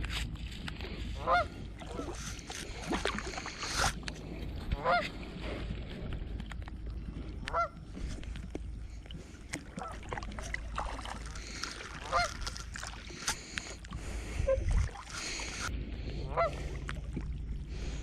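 A goose honking about six times, a few seconds apart, over the sound of water and small knocks from a kayak paddle.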